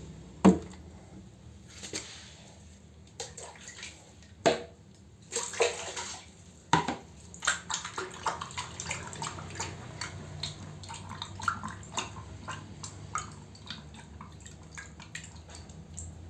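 Water splashing and sloshing in irregular bursts, with scattered drips and clicks and a sharp knock about half a second in.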